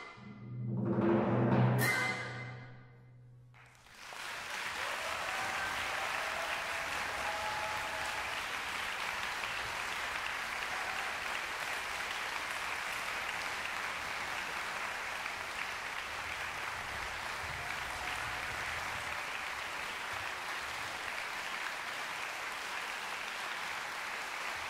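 A flute orchestra with timpani and double basses plays its final loud chord, which swells and cuts off about two seconds in. After a brief silence the audience breaks into steady applause that continues to the end.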